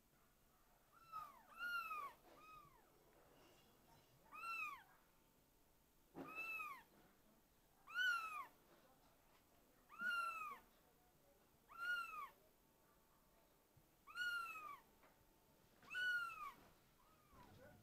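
Kitten meowing over and over, about ten high-pitched cries that each rise and then fall, coming every one and a half to two seconds.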